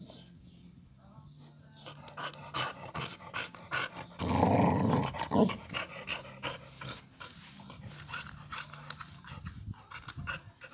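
Dog gnawing a chew stick: repeated wet crunches and clicks of teeth on the stick, with a louder rough burst lasting about a second, about four seconds in.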